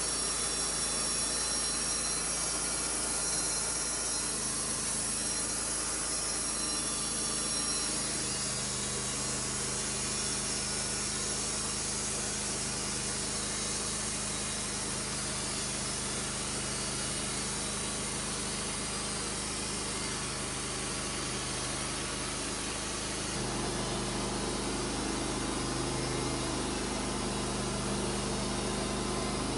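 Wood-Mizer LT35 portable band sawmill running steadily, its engine driving the band blade through a Douglas fir log.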